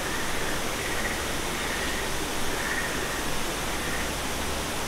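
Waterfall pouring down a rock face: a steady, even rushing of falling water. Faint high chirps come through about once a second.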